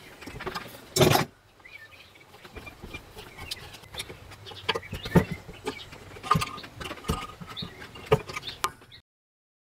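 Metal hand tools clinking and knocking against the burr assembly of a Faema MPN coffee grinder while its feeder is unscrewed: scattered sharp clicks, the loudest about a second in. The sound cuts out near the end.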